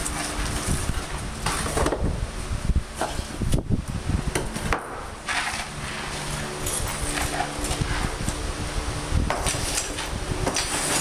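Irregular knocks and impacts as stone and old mortar are broken up off a floor. About halfway through they give way to a steadier mechanical noise with a low hum.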